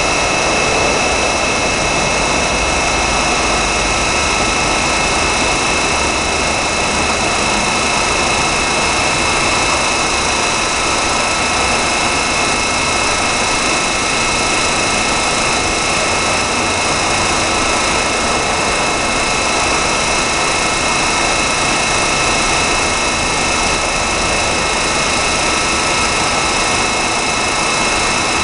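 Zayer KF3000 CNC bed mill running steadily: an even machine drone with a high whine held at a fixed pitch.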